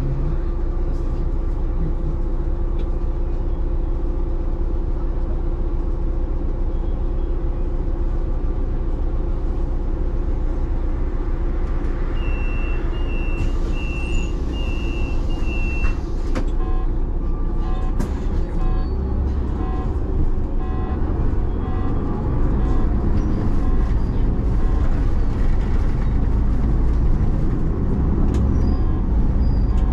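City bus engine running steadily. About halfway through comes a row of short high beeps with a hiss of compressed air, and the engine grows louder in the last third.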